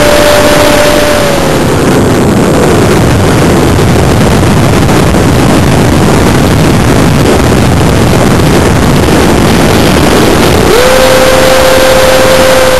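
Onboard a Stryker RC flying wing, the electric motor's steady whine falls away about a second in as power comes off. That leaves loud wind rushing over the microphone while the model spins down. Near the end the motor whine comes back in at a steady pitch as power is reapplied for the spin recovery.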